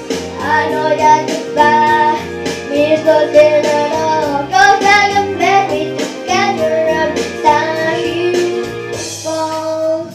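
A boy singing a pop ballad into a handheld microphone over instrumental accompaniment; singing and music stop together near the end.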